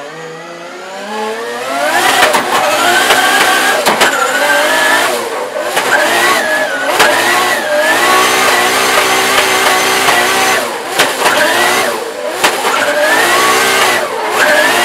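Drift car engine heard from inside the cockpit, revving hard. Its pitch climbs over the first two seconds, then holds high, dipping and climbing again several times as the throttle comes off and back on, with a few sharp cracks along the way.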